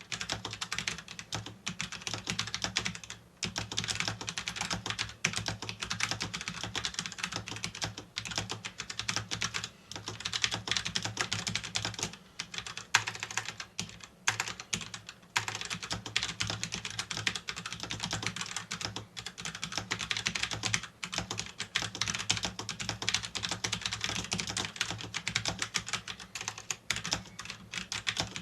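Fast, continuous typing on a computer keyboard, a rapid stream of key clicks broken by a few short pauses, over a faint steady low hum.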